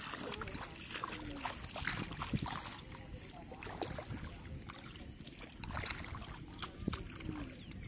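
Bare feet wading through shallow water over mud, a string of irregular splashing steps, with wind rumbling on the microphone.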